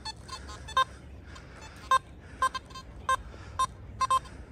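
Metal detector signalling a buried metal target, a penny, with short electronic beeps of one pitch at uneven intervals, about nine in all, two of them close together near the end.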